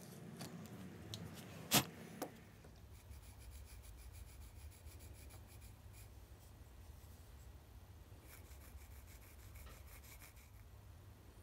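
Pencil scratching faintly in a run of short strokes across the end grain of a freshly cut stick, marking its centre. Before that, an auger bit in a hand brace boring into the stick ends with a sharp knock about two seconds in.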